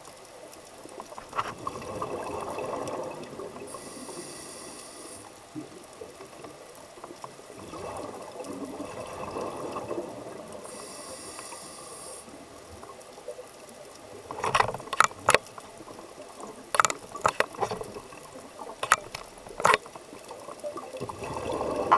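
Underwater scuba breathing heard through a camera housing: a rush of exhaled bubbles comes in waves every few seconds, with a short hiss between them. Several sharp clicks sound in the second half, the loudest events.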